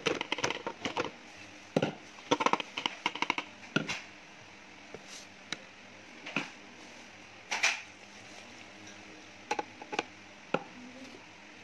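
Kitchen handling noise as ingredients are tipped into a mixing bowl: a quick run of clicks and taps from containers and utensils knocking against the bowl, then single knocks spaced out. One louder knock comes about two-thirds of the way through.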